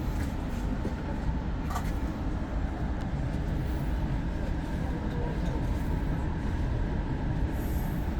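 Hakodate Liner electric train running, heard from inside the passenger car: a steady low rumble of wheels on track with a few faint clicks.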